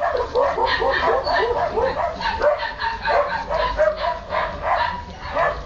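Husky puppies yipping and whining: a rapid run of short, pitched calls, several a second, overlapping one another.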